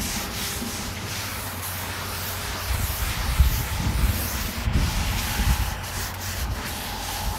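A wad of oiled paper towels is rubbed back and forth over the steel top of a Char-Griller Flat Iron griddle, making a steady scrubbing rasp with brief breaks as the strokes change. The towels are spreading the first coat of oil to season the griddle.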